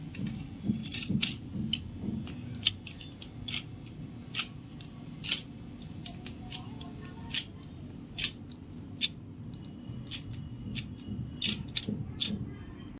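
Scissors snipping: a long run of sharp, irregular snips over a steady low hum.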